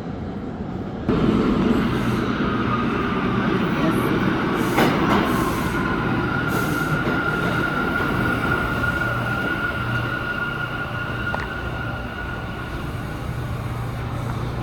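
New York City subway train running in the station, with the rumble rising suddenly about a second in. A steady high-pitched whine or wheel squeal holds from about six seconds until near the end.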